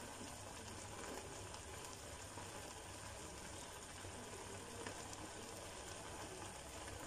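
A thick vegetable and lentil curry simmering in a steel pot, with faint, steady bubbling and crackle.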